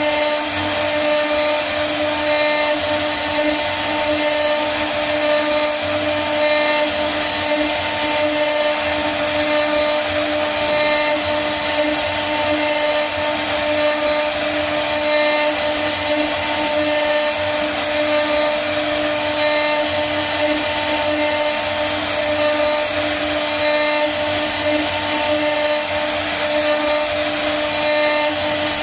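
CNC router spindle running with a steady whine while its bit carves a relief into a wooden panel, with the noise of the cut over it.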